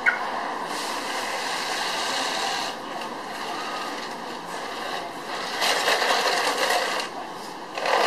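Toy radio-controlled tank driving, its small electric drive motors whirring and its tracks rattling over pavement. A sharp click comes right at the start, and the whir gets louder in two stretches in the second half.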